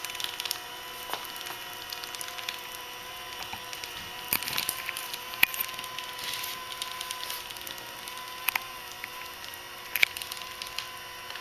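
Leister Uniplan hot-wedge welding machine running and welding a seam in polyethylene sheet: a steady motor whine with several pitches held, broken by scattered sharp crackles and clicks.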